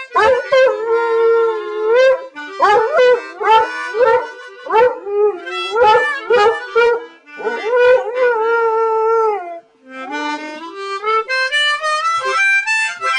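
Harmonica playing phrases with bent notes while a dog howls along; near the end the harmonica climbs in a quick rising run.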